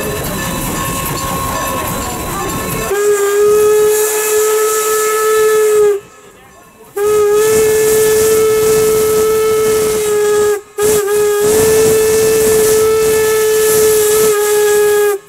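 Norfolk and Western #475's steam whistle blowing close by over the locomotive's running noise: two long blasts, a short one and a final long one, the standard grade-crossing signal. The first blast starts about three seconds in.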